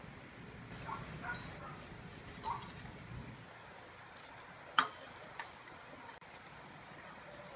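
Light clinks and taps of miniature kitchenware: a tiny glass bottle, then a small wooden spoon, against a small stainless steel pot. There are a few soft clinks early on and one sharp tap about halfway through, the loudest sound, followed by a smaller tap.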